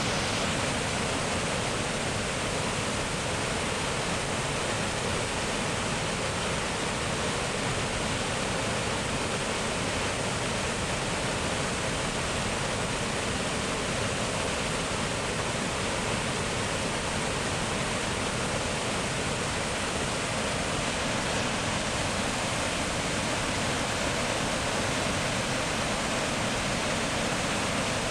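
Water pouring steadily over the Sakura-no-taki waterfall, an even, unbroken rush of falling water.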